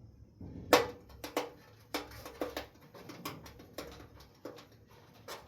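Irregular knocks and taps from handling wooden shelf parts: one sharp knock a little under a second in, then a run of lighter taps and clatters.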